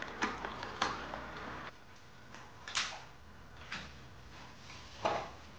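Siberian husky gnawing on a knotted chew bone: a few scattered, irregular crunches and knocks, the loudest about five seconds in.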